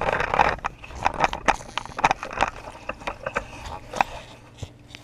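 Handling noise from a handheld camera being carried and set down on the grass: irregular knocks, clicks and rustling, with a sharper knock about four seconds in.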